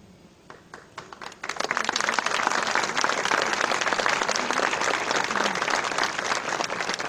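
Audience applauding: a few scattered claps about half a second in, building into full steady applause about a second and a half in.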